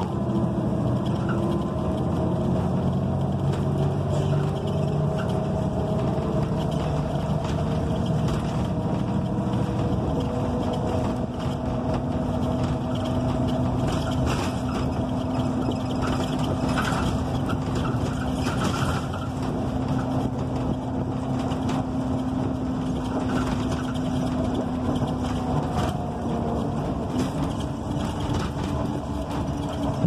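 Cabin noise of a NABI 45C-LFW articulated transit bus under way, with its Cummins Westport ISL G natural-gas engine and Allison B400R automatic transmission running steadily. An engine whine climbs slowly and steps down in pitch about ten seconds in, over road noise and light interior rattles.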